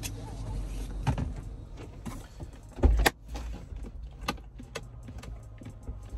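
A car door shutting with one loud thump about three seconds in, among smaller clicks and knocks of someone getting out of a parked car.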